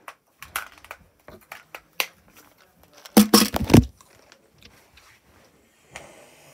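Close handling noise: a string of short clicks and rustles, then a loud scraping rustle lasting under a second a little past halfway, and a fainter rustle near the end.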